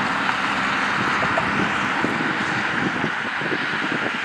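Jet airliner climbing away after takeoff, its engines a steady rushing noise.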